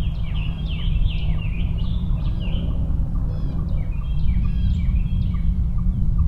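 Several songbirds chirping and singing, with short downward-sweeping notes and trills, over a steady low rumble.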